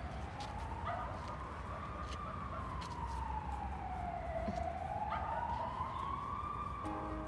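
Emergency-vehicle siren wailing, its pitch sliding slowly up and down about every four seconds, over a steady low rumble.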